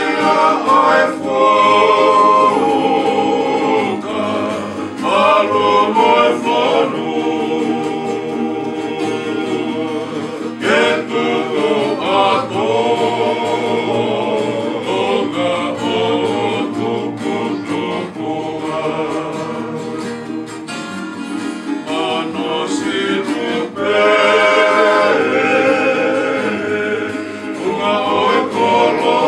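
A group of men singing a Tongan song in harmony, accompanied by strummed acoustic guitars and a ukulele.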